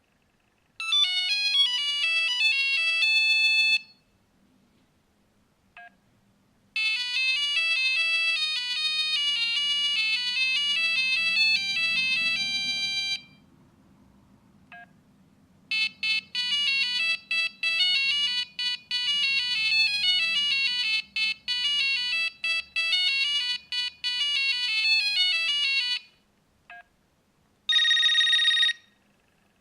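Nokia 450 (THF-9P) mobile phone playing its monophonic ringtones one after another: three short beeping tunes of single stepped notes with pauses and faint clicks between them. Near the end comes one steady buzzy tone lasting about a second.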